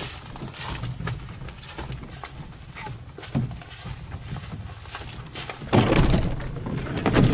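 Footsteps along a wooded trail with the rustle and knock of a canoe carried overhead on the shoulders. A louder stretch of rubbing and handling noise comes near the end.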